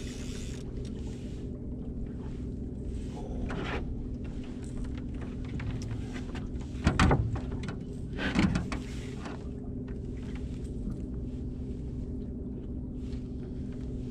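Electric trolling motor humming steadily while the boat trolls, with two brief louder thumps about seven and eight and a half seconds in.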